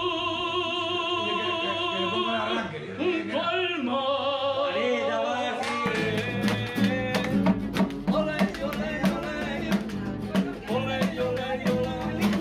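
A man sings a long held note with heavy vibrato, in an almost operatic style, then moves through shorter sung notes. From about six seconds in, a strummed acoustic guitar plays under the singing.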